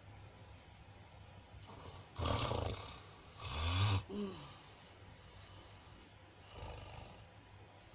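A person snoring: two loud, rasping snores about a second apart, the second trailing off in a short whistling wheeze, then a softer snore near the end.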